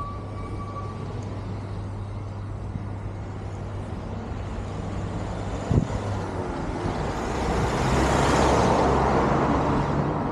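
A road vehicle drives past, its engine and tyre noise swelling to a peak about eight seconds in and then fading. Beneath it runs a steady low hum.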